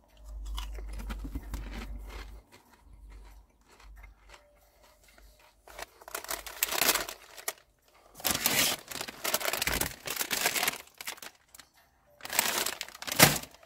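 Crunching on a crisp for the first couple of seconds, then plastic crisp-packet and sweet-bag crinkling in several loud bursts from about six seconds in.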